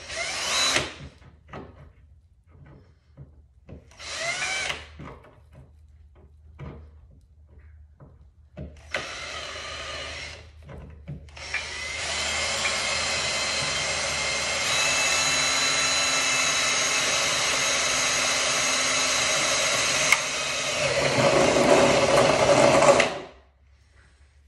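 Cordless drill run in three short bursts, then held on for about eleven seconds. It gets louder and deeper about two seconds before it stops.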